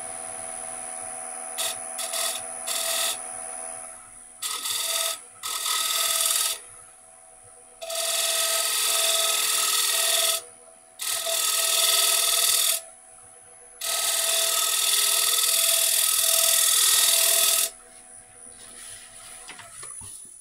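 Wood lathe running with a steady hum while a scraper is held against the spinning wooden plate, rasping in a few short touches and then in several longer passes of one to four seconds each.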